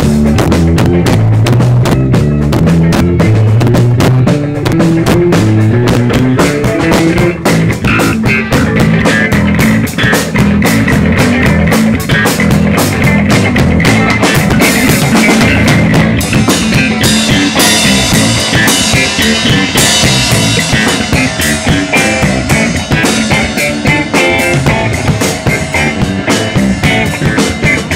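Live band jamming: a Pearl drum kit played hard with bass drum and rimshots, under electric guitar and a moving low bass line. The playing grows brighter and busier about halfway through.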